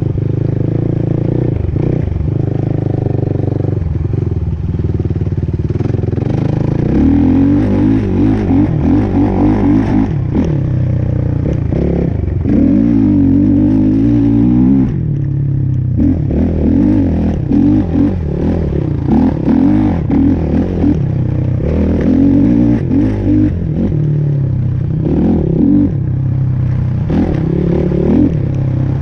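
Vehicle engine running under way, its pitch rising and falling again and again as the throttle changes.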